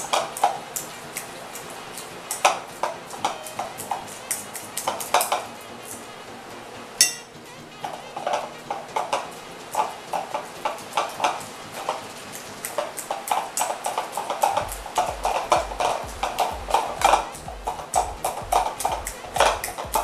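Metal fork clicking and scraping against a bowl while mashing avocado into a purée. It is an irregular run of quick taps that grows busier in the second half, with one sharper knock about seven seconds in.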